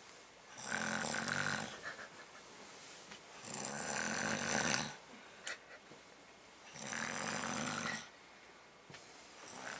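A person snoring in a slow, regular rhythm, one snore about every three seconds, each lasting a second or so: three full snores, with a fourth starting near the end.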